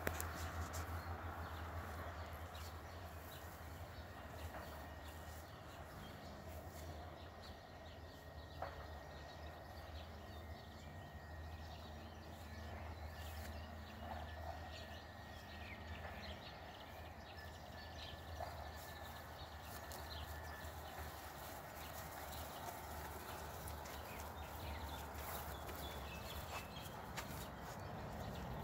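Faint outdoor ambience: a steady low rumble with a few faint animal calls scattered through it.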